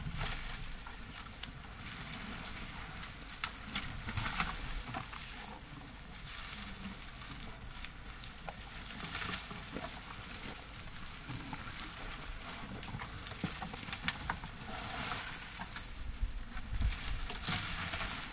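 African bull elephant feeding on a broken-off acacia branch: leaves rustling and twigs crackling in irregular bursts, with scattered sharp snaps.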